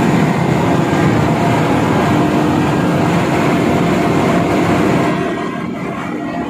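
Woodchip carrier's main belt conveyor machinery running during discharge: a loud, steady mechanical rumble with a low hum, easing slightly about five seconds in.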